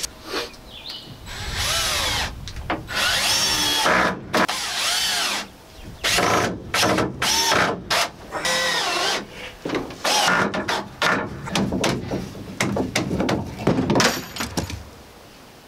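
Cordless drill driving wood screws into a board, in about six short runs, the motor pitch rising and falling with the trigger and the load as each screw goes in.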